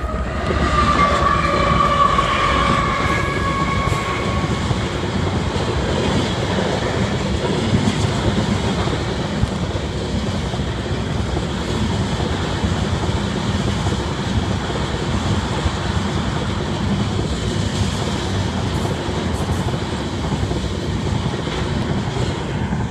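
BNSF oil train of tank cars rolling past, a steady rumble and clatter of steel wheels on the rails. A high ringing tone sounds at the start and fades away over the first few seconds.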